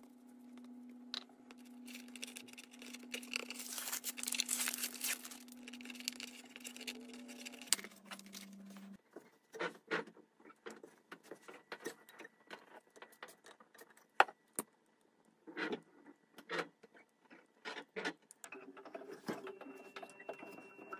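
A plastic spreader scraping and smearing a wet white compound across a floor patch, with a steady hum beneath. After a cut, short metallic clicks and clinks as needle-nose pliers clamped in a vise are handled and their handles and jaws knock together.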